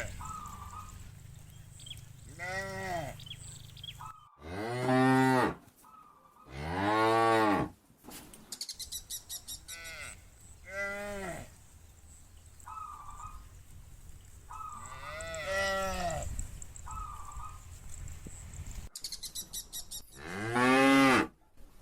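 Herd of cattle mooing, about seven separate calls, each rising and then falling in pitch; the loudest last about a second each.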